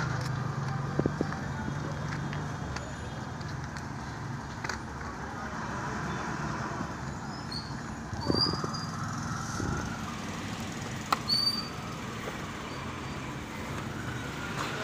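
Outdoor background with a steady low hum like distant traffic, a few short high chirps, and occasional light clicks and knocks of tools being handled in a plastic case, with one sharp click about eleven seconds in.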